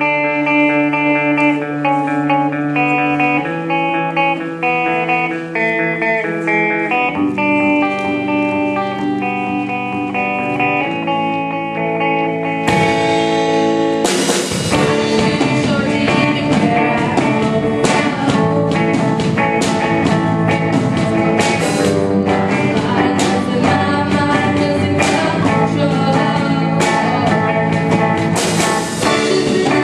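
A live band playing a rock song's intro. Held chords change every few seconds, then the rest of the band comes in louder with sharp beats about 13 seconds in.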